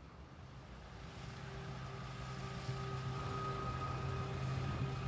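Outdoor background of vehicle noise with a steady low engine hum, fading in gradually.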